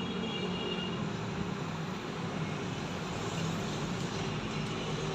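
Steady background rumble with a low hum, like road traffic, with no distinct clicks or knocks; a faint high tone sounds briefly in the first second.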